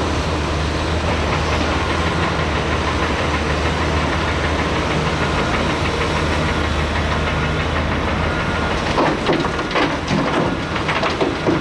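Large diesel excavator running steadily, then a series of sharp metal clanks and knocks from about nine seconds in.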